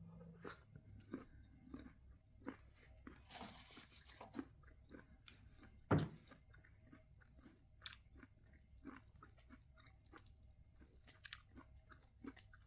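Faint close-up chewing and biting of sweet corn, a run of small irregular crunches and mouth clicks, with one sharper crunch about six seconds in.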